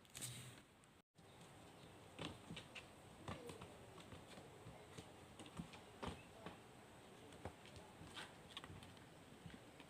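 Faint, irregular light taps and clicks, a dozen or so scattered over several seconds, over quiet room noise.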